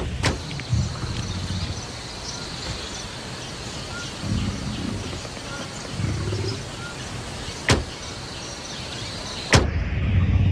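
Television static hissing steadily, with low rumbles now and then and a sharp click twice near the end; after the second click the hiss gives way to a different sound as the channel changes.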